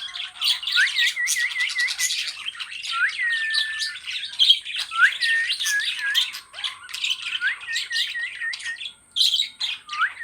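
Pet budgerigar warbling: a continuous chatter of rapid clicks and squeaky notes, broken by quick runs of four to six short whistled notes at the same pitch.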